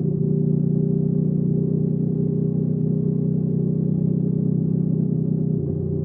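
Hyosung GV300S Aquila 300's V-twin engine and exhaust running steadily under way. About five and a half seconds in the note changes and eases slightly, as with a throttle change or a gear shift.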